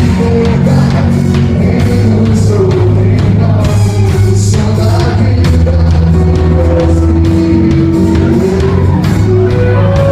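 Worship song played by a band with a drum kit, with a voice singing long held notes over it.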